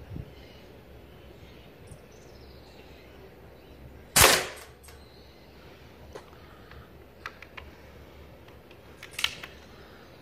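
A .177 BSA Stutzen spring-piston air rifle fires once about four seconds in: a sharp crack with a short ringing after it. A few faint clicks follow, then a louder click near the end.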